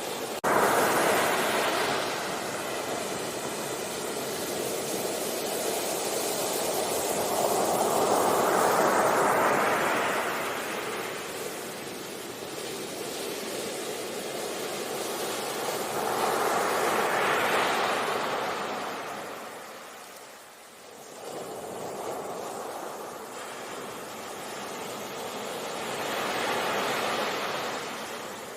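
Sea waves breaking and washing on a beach, a steady rush that swells and fades in slow surges about eight to nine seconds apart.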